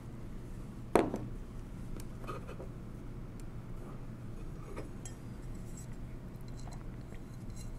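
Small metal clicks of a screwdriver and a loose screw on the steel frame of a 1920s Monroe Model K mechanical calculator while a screw is being removed: one sharp click about a second in, then a few faint taps, over a low steady hum.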